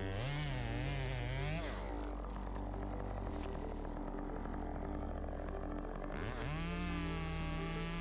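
Gas chainsaw engine revving up and down, easing to a lower, rougher running speed, then revving up sharply about six seconds in and holding at full throttle.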